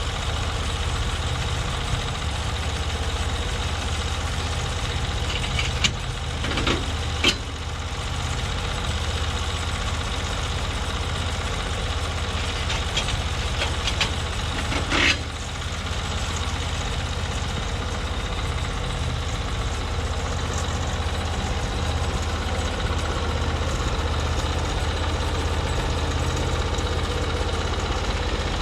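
Engine of a Norwood MX34 portable bandsaw mill running steadily. A few short sharp knocks come about seven seconds in, and another about fifteen seconds in.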